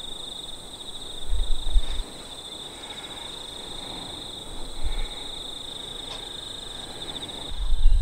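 Insects chirring steadily in a high, fast-pulsing drone, with brief low rumbles of wind on the microphone about a second and a half in and again near the end.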